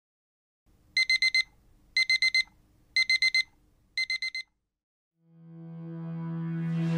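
An electronic alarm beeping in the classic alarm-clock pattern: four groups of four quick high beeps, one group a second, the last group slightly fainter. From about five seconds in, a low musical tone swells up and grows louder.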